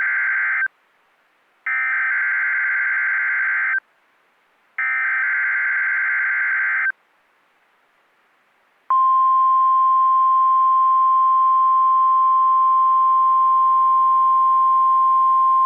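NOAA Weather Radio Emergency Alert System weekly test: the SAME digital header bursts, the end of one and then two more, each about two seconds long with a second of silence between. About nine seconds in comes the steady 1050 Hz weather radio warning alarm tone, which holds.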